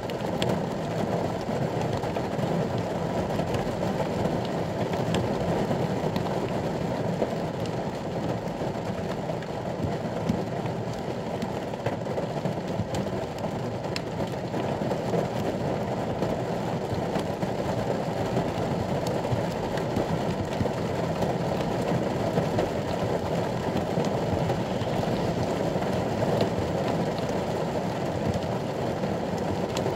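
Steady rain falling on a ute's roof, heard from inside the cab: a dense, even patter scattered with sharper clicks of single drops.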